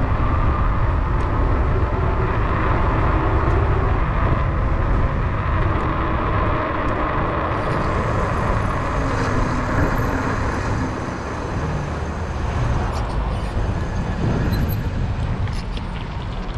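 Steady wind rumble on the microphone and road noise from a moving e-bike, with city traffic around it.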